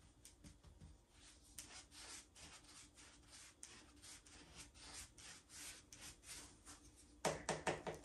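Faint, repeated swishes of a chip brush's bristles stroking back and forth across a coated tabletop. A brief, louder cluster of knocks comes near the end.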